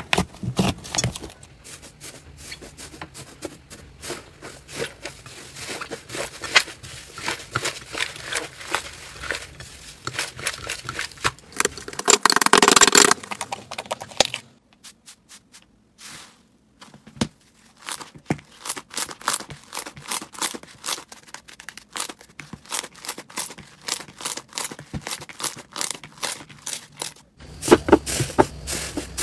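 Slime being squeezed and poked close to the microphone: dense crackling and popping clicks, with a louder crinkling squish about twelve seconds in, then a short quiet stretch with only scattered clicks before the crackling thickens again near the end.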